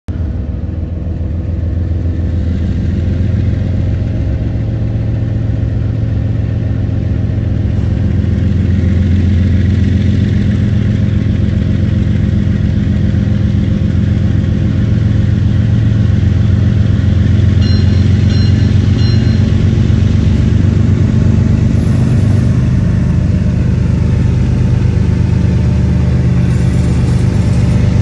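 Canadian Pacific diesel-electric freight locomotives pulling away under power, their engines running with a deep, steady sound that grows louder over the first several seconds as the train approaches, then holds.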